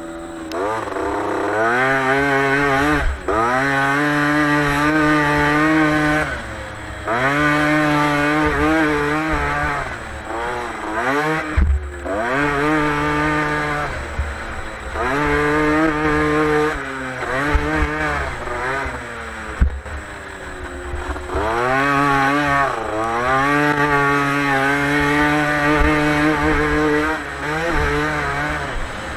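Dirt bike engine heard from on board, revving up in climbing sweeps through the gears, holding, then dropping off as the throttle is shut, again and again every few seconds around the motocross track.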